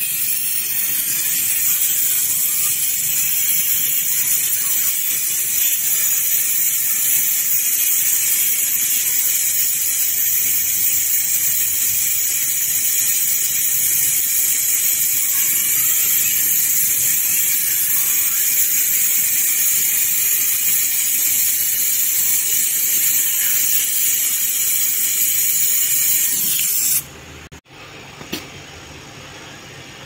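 Gas brazing torch flame hissing steadily while copper refrigerant pipes are brazed onto a refrigerator compressor: a loud, even, high hiss that cuts off suddenly near the end.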